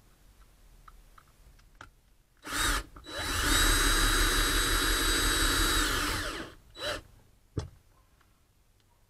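Cordless drill running at a metal switch cover plate as it is mounted over the jack switches. It gives a short blip, then a steady run of about three and a half seconds that speeds up and winds down, then another short blip.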